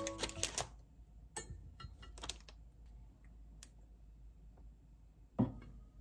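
A few scattered light clicks and taps, with one louder knock about five and a half seconds in.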